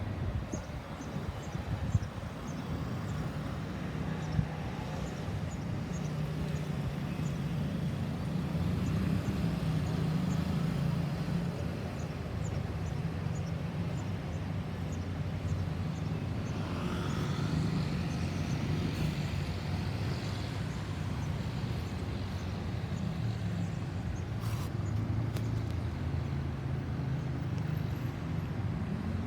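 A motor vehicle's engine running steadily with a low hum, with road traffic around it. About 17 seconds in, another vehicle's sound rises and then fades.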